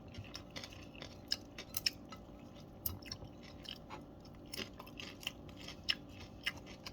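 Close-up chewing of nachos, tortilla chips with melted cheddar and salsa: quiet, irregular crunches, about a couple each second.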